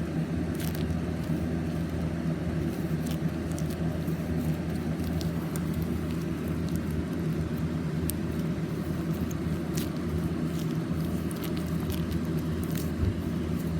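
Steady low hum with faint scattered clicks and crackles.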